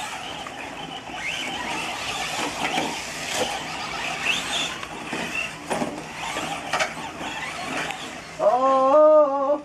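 Radio-controlled off-road cars racing on a dirt track, their motors whining up and down with the throttle, with a few sharp knocks. Near the end a person lets out a long wavering cry, the loudest sound.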